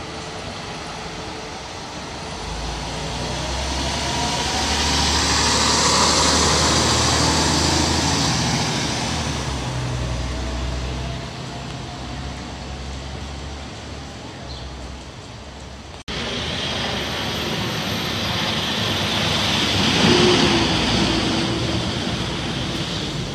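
Diesel fire engine driving past at low speed, its low engine rumble swelling as it nears and fading as it moves off. After an abrupt cut, a fire department ladder truck passes close by with a second swell of engine noise.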